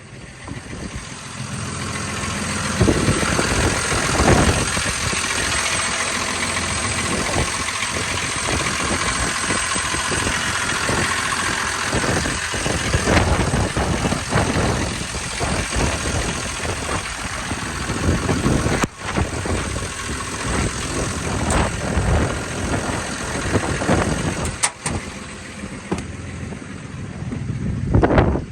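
Diesel engine of a Hyundai R220LC-9A crawler excavator running. It grows louder about two seconds in, with scattered knocks and clunks throughout.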